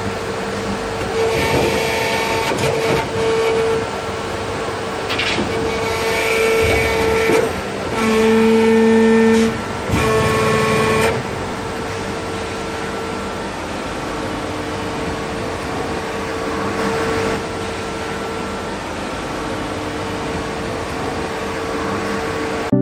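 Small motor whining with one steady tone as a model crane truck lifts a load, swelling in several short bursts during the first half, with a lower tone joining briefly near the middle.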